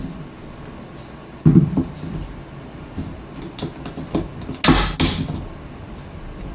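All-plastic cell phone holder being clamped onto a phone, its mechanism sounding very violent: a dull knock, a run of small clicks, then two loud sharp snaps about a third of a second apart.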